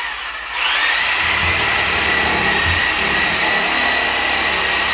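Corded power saw starting up about half a second in and running at a steady high whine. The blade is not cutting, which the users put down to a blade that needs replacing.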